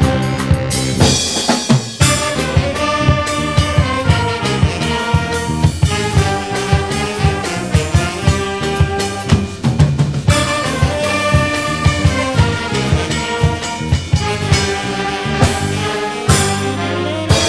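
Brass band playing: horns such as trumpets and trombones carrying the tune over a steady, driving drum beat.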